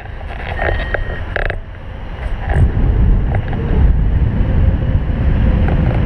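Wind rushing over the microphone of a camera on a paraglider in flight: a low buffeting rumble that grows louder about two and a half seconds in, with a few short rustles and clicks in the first second and a half.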